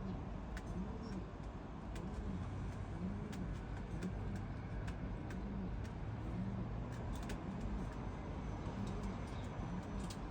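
Homing pigeons cooing, a low rising-and-falling coo repeated about once a second, with scattered light clicks and a steady low rumble underneath.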